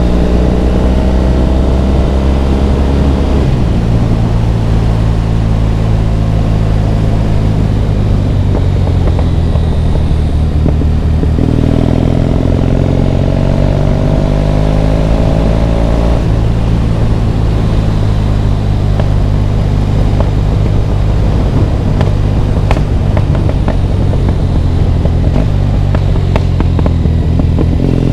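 Triumph Bonneville T100's parallel-twin engine running under way on the road, loud and steady. Its note climbs gradually and shifts in pitch several times, about four seconds in, around eleven and sixteen seconds, and near the end.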